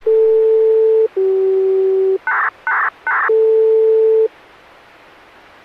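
Start-up signal of a Japanese municipal disaster-prevention radio broadcast, heard through a radio receiver. A long steady tone, a slightly lower one, three short buzzy bursts and the first tone again come before the chime music, and steady radio hiss follows from about four seconds in.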